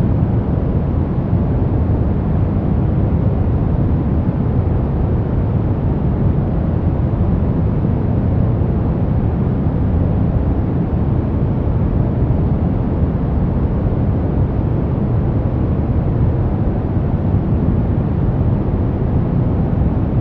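Continuous, unchanging relaxation noise track, deep and rumbling rather than bright: a steady hiss weighted heavily toward the low end, closer to brown noise than to flat white noise.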